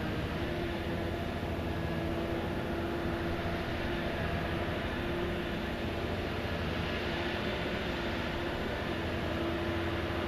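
Steady drone of the dredger Nordic Giant's heavy diesel machinery running, with a hum that wavers slightly in pitch.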